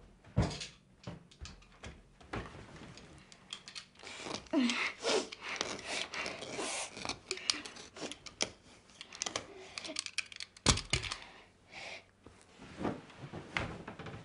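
Bedding and pyjamas rustling as someone shifts about on a bed and handles a large plush teddy bear: irregular shuffles and scrapes, with a sharper knock a little after ten seconds in.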